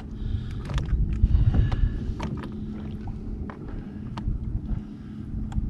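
Low rumble of wind and water around a kayak, with scattered light knocks and clicks from a freshly caught mackerel and rockfish and the tackle being handled on board.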